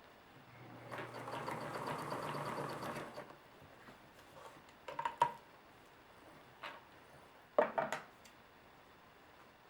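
Vintage sewing machine running for about two and a half seconds, zigzag-stitching a jean zipper onto the fabric edge with rapid, even needle strokes over a low motor hum. Then a few sharp clicks and knocks.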